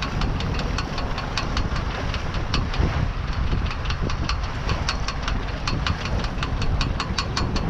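Rapid, even ticking, about four ticks a second, over a steady low rumble of wind and water. The crew cannot identify the noise.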